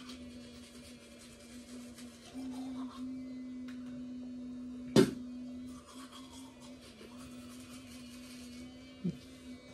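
Electric toothbrush buzzing steadily with a hum during brushing, growing louder for a few seconds in the middle. A single sharp knock about five seconds in, and a softer one near the end.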